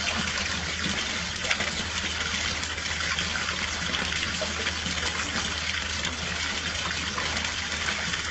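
Water pouring steadily over the lip of a small garden fountain, a constant gushing splash.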